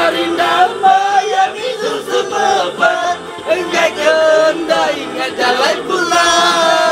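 Music with singing: a voice holding and bending drawn-out melodic notes over an accompaniment.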